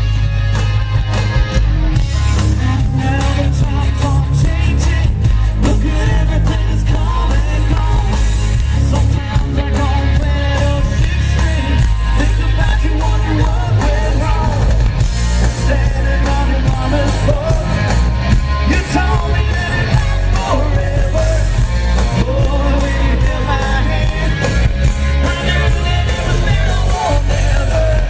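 Live rock band playing loud, with drums, bass and electric guitars, and a voice singing over them.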